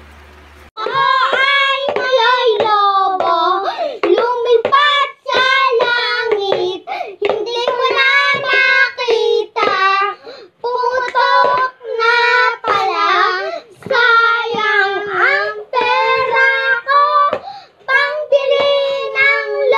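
Two young boys singing a song together, with a hand-struck beat alongside.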